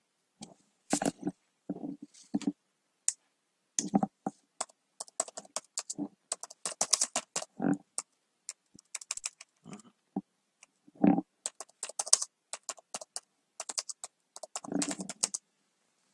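Computer keyboard being typed on in irregular bursts of key clicks, with short pauses between the runs of keystrokes.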